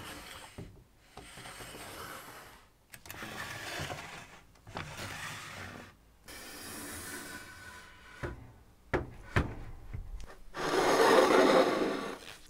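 A run of short rubbing and scraping sounds on wood and metal, each starting and stopping abruptly, with a few sharp knocks past the middle and the loudest, longest rasping scrape near the end.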